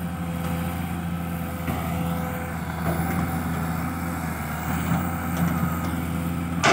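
Kobelco SK200-1 crawler excavator's diesel engine running steadily as it digs and shifts sand, with one sharp clank near the end.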